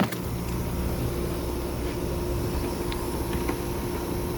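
Steady hum and hiss of running machinery with a constant mid-pitched tone, and a click at the very start.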